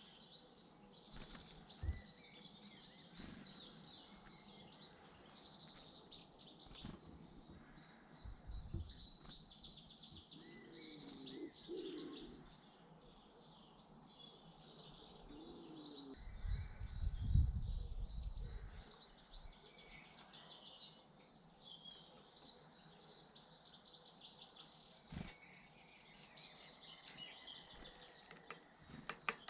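Small garden birds chirping and twittering around a feeder, many short high calls and trills, with a few sharp taps. A brief low rumble swells and fades about 17 seconds in.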